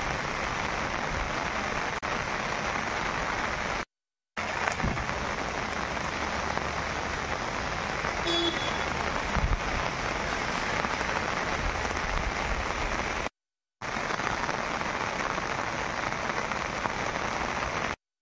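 Heavy rain falling steadily on flooded streets, a dense even hiss. It drops out twice for a moment, about four seconds in and again past the middle.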